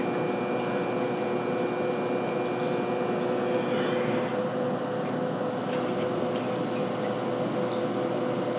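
Branson ultrasonic cleaning line running automatically while its TDR 15 gantry robot carries a wire basket along the tanks: a steady machine hum holding a few constant tones, with a thin high whine that stops about four seconds in.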